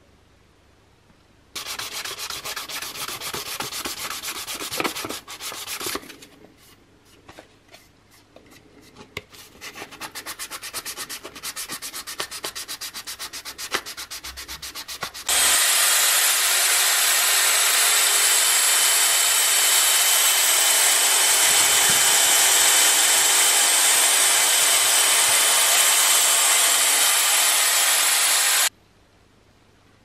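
Hand sanding of a black plastic coffee-machine panel, rasping back and forth in quick, regular strokes. Midway it gives way to a small electric rotary polisher with a foam pad running steadily against the plastic, a loud even hiss with a faint high whine, which stops suddenly near the end.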